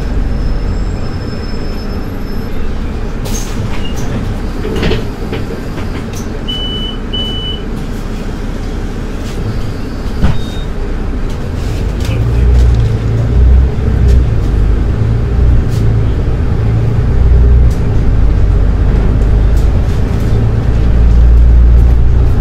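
Solaris Urbino 12 IV city bus running, a steady bed of engine and road noise. Two short high beeps sound about seven seconds in. From about halfway through, the engine's low rumble grows louder.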